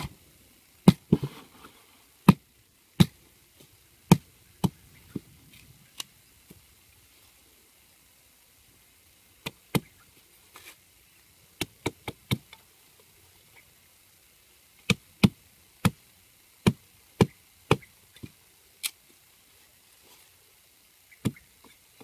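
A hatchet chopping a thin wooden stick on the ground: sharp, separate blows in irregular runs, with a pause of a few seconds near the middle.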